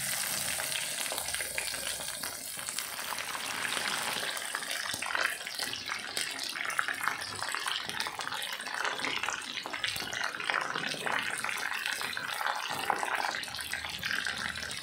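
Tapioca-coated chicken wings deep-frying in plenty of hot oil: a steady sizzle full of fine crackling.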